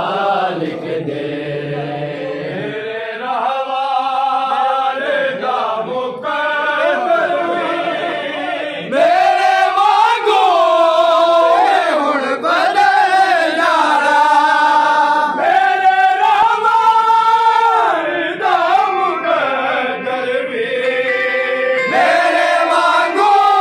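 A group of men chanting a noha, the mourning lament of a Shia pursa, in unison with long, drawn-out melodic lines. The chanting swells louder about nine seconds in.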